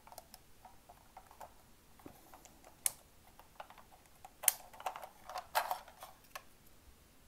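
Plastic clicks, taps and scrapes as a four-AA battery holder is worked out of a radio transmitter's battery bay. Scattered at first, with a sharp click about three seconds in, then a busier run of clicks and rattles a little after halfway.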